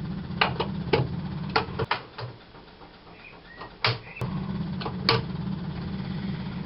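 Semaphore trafficators on a Wolseley 6/90 being switched on and off: sharp clicks as the arms flick, with a low electrical hum that stops with a click about two seconds in and starts again with a click about two seconds later.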